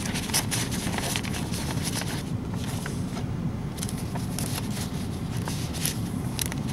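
Folded paper receipts rustling and crinkling as they are slid into a cardboard folder, a run of light irregular crackles over a steady low rumble.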